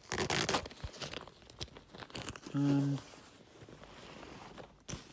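Rustling and scraping of a shiny bag being handled close to the microphone, loudest in the first second and a half. A short hummed vocal sound comes about two and a half seconds in.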